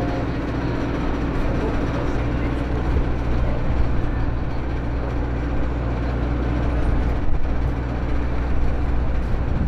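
A moored sightseeing cruise boat's engine idling, a steady low hum with a constant drone and no change in pitch.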